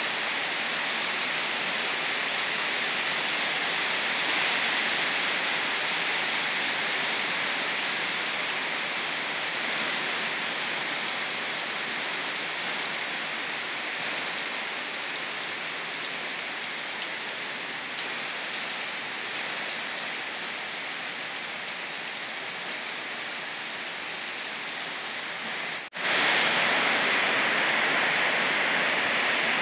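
Rain pouring down onto trees and plants, a steady hiss. It cuts out for an instant near the end and comes back louder.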